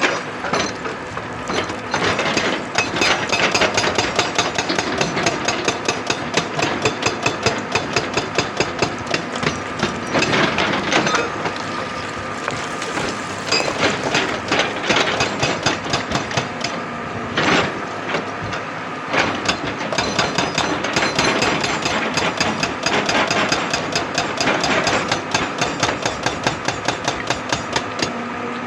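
Excavator-mounted hydraulic rock breaker hammering rock in rapid repeated blows, in several bursts with short lulls, over the steady run of the machine's engine.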